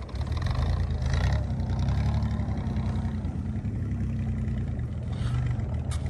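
Lifted Toyota 4Runner's engine running steadily at low revs while crawling through deep snow.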